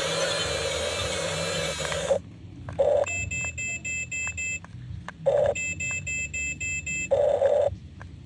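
Steady whirring noise that stops abruptly about two seconds in. It is followed by an electronic beeper sounding in repeated groups of short, high beeps, about four a second, with pauses and a lower blip between the groups.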